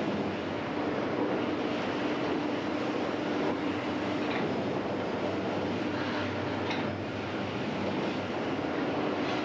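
Steady drone of bakery machinery running, with a constant hum and a few faint clicks.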